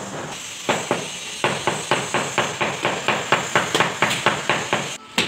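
A hammer tapping floor tiles down into wet mortar while they are being laid: rapid, even taps, about five a second, starting about a second in.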